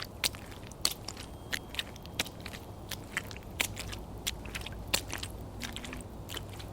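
Wet footsteps stepping through liquid: irregular sharp, wet, crackling clicks, roughly one or two a second, over a faint low rumble.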